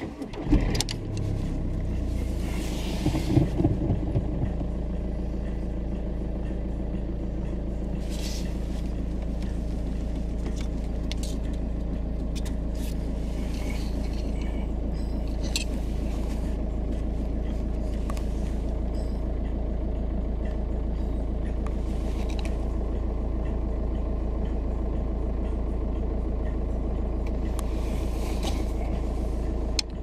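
VW Golf 5 car engine starting about half a second in, after the bare ignition switch is turned with a screwdriver because the lock cylinder is removed, then idling steadily. Brief rustles are heard now and then.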